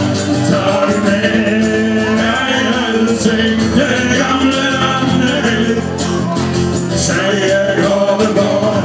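Live band playing a song with singing, amplified through PA speakers.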